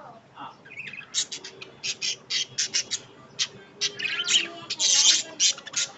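Birds squawking: many short, harsh calls in quick succession starting about a second in, densest near five seconds in.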